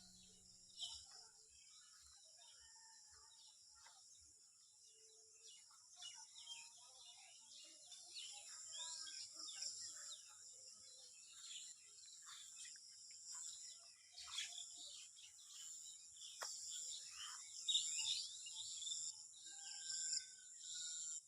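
Outdoor birdsong over a steady high insect chorus: many birds chirping and calling in short, quick notes that grow busier after about six seconds, over a continuous high-pitched trilling of insects.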